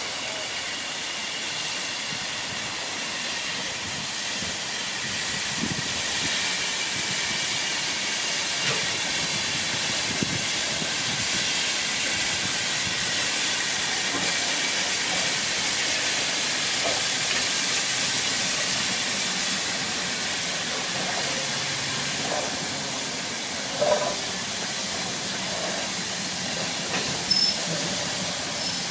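BR Standard Class 5 4-6-0 steam locomotive 73156 running slowly light engine, giving off a steady hiss of escaping steam that grows louder as it approaches and eases as it passes. Two short sharp knocks come near the end.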